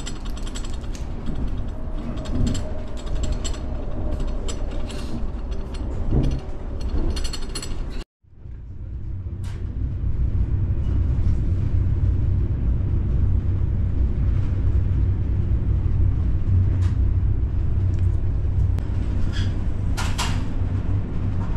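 Interior running noise of a moving Deutsche Bahn passenger train: a steady low rumble with rattling and clicking. The sound cuts off abruptly about eight seconds in, then the rumble comes back heavier and steadier, with only a few scattered clicks.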